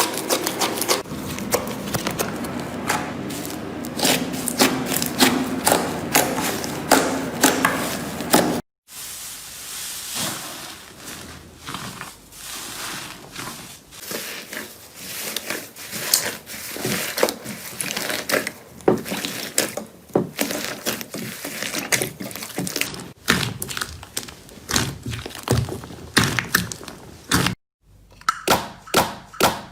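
Slime being squeezed, poked and stretched by hand: a dense run of sticky clicks, pops and crackles. It changes character at two abrupt cuts, about a third of the way in and near the end.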